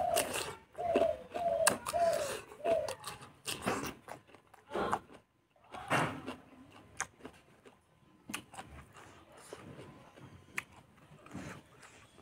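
Close-up eating sounds of fatty pork being chewed: wet smacks and clicks of the mouth, irregular and repeated. Several short pitched vocal sounds come in the first three seconds.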